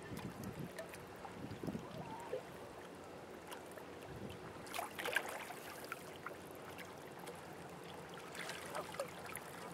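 Small river waves lapping and trickling at the shoreline, with a faint steady hum underneath and a couple of slightly louder splashes, about halfway through and near the end.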